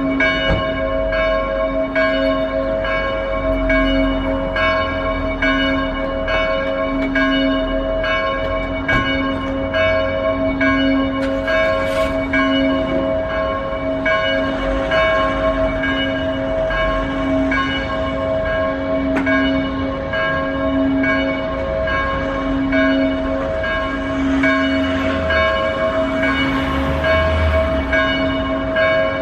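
Church bells ringing steadily, a stroke about every two-thirds of a second, each one ringing on into the next.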